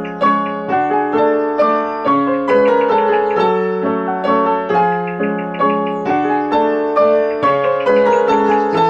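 Background music: a gentle piano melody, single notes struck at a steady pace of about two a second, each ringing and fading.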